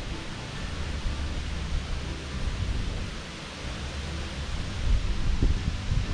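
Strong wind buffeting the microphone: a gusty low rumble over a steady hiss, easing about three seconds in and gusting harder again near the end.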